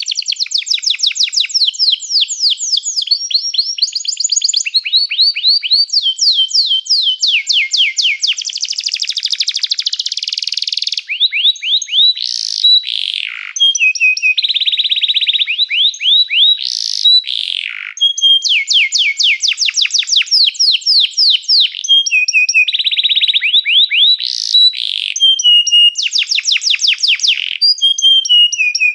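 Domestic canary singing a long unbroken song of rapid trills, one run of quick repeated notes after another, each run at a different pitch, with a few sharp sweeping whistles between them.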